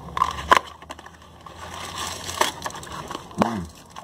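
Crinkling and rustling of a Lindor chocolate pack and a foil-wrapped Lindor truffle being handled and pulled out, with a few sharp crackles of the packaging.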